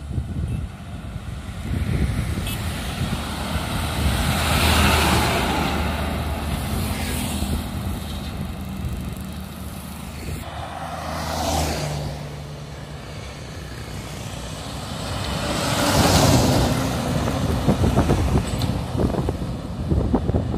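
Heavy lorries and other road traffic passing close by, one after another. Each one brings a low engine drone and a rush of tyre noise that swells as it goes by and then fades.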